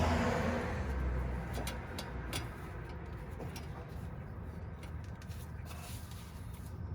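A passing vehicle fades away in the first second or so. After it, faint, scattered clicks and taps of an oil filter wrench work at the oil filter under the car.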